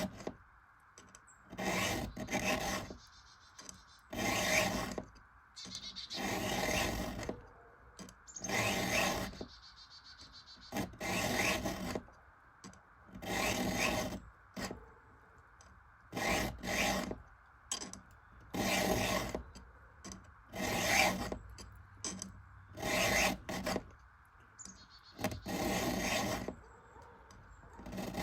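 Round file being drawn through the cutter of an Oregon ripping chain for freehand sharpening, in slow, even strokes about every two seconds, with light pressure to let the file cut.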